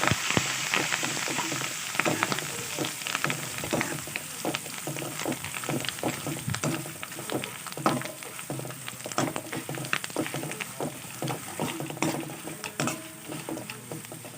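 Tempering of peanuts, chana dal, chillies and curry leaves in oil sizzling in a pan while it is stirred, with frequent sharp clicks and scrapes. The sizzle gradually dies down.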